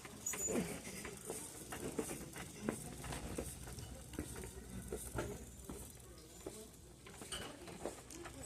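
Faint, scattered clicks and rustles of clothes hangers being pushed along a metal clothing rack while someone flips through skirts.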